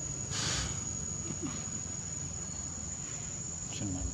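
Forest insects droning: one steady high-pitched tone throughout, with a brief hiss about half a second in and a couple of faint short calls.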